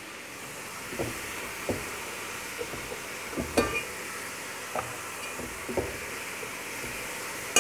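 Fried rice sizzling in a large aluminium pot as a spatula stirs and tosses it. The spatula knocks and scrapes against the pot about six times, loudest about three and a half seconds in.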